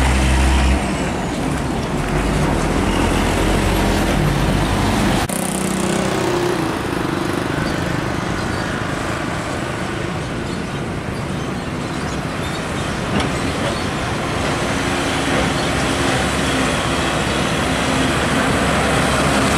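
Heavy diesel trucks driving past: a Hino 500 truck's engine running as it passes. About five seconds in the sound changes abruptly to a UD Trucks (Nissan Diesel) truck with trailer pulling along, engine running over road traffic noise.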